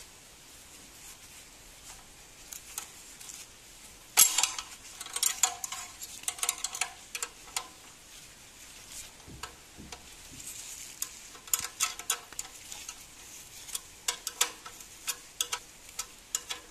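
Metal combination spanner clicking and clinking on a steel handlebar bolt as it is turned and repositioned, in two runs of quick metallic taps, the loudest about four seconds in.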